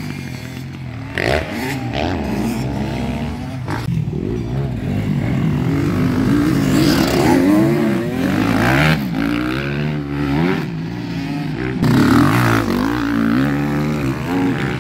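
Enduro dirt bikes revving hard as they ride past one after another, engine pitch rising and falling with throttle and gear changes. Loudest as the bikes pass close, about halfway through and again a few seconds later.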